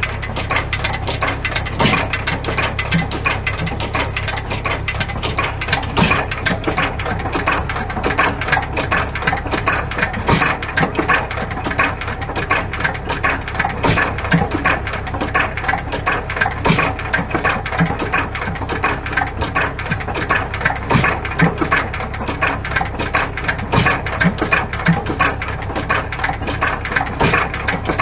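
12 hp Hercules hopper-cooled stationary engine running, its crank and valve gear making a fast, steady clatter of clicks with an occasional louder knock.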